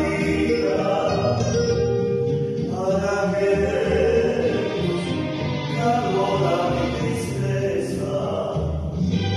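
Vocal trio singing an Ecuadorian pasillo in harmony, with instrumental accompaniment.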